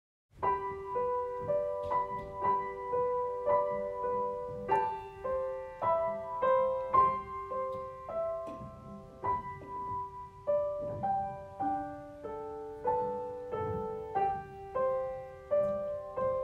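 Piano music: a slow melody of single struck notes, each fading before the next, beginning about half a second in.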